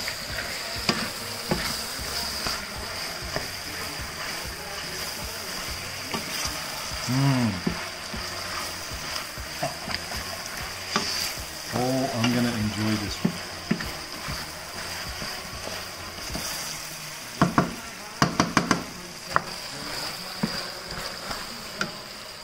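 Chopped vegetables and tomato paste sizzling in a stainless steel pan while a wooden spoon stirs and scrapes through them. A quick run of sharp knocks comes about three-quarters of the way in.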